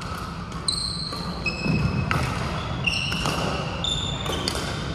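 Court shoes squeaking on a polished sports-hall floor during badminton play, many short high-pitched chirps overlapping, with a few sharp racket-on-shuttlecock hits.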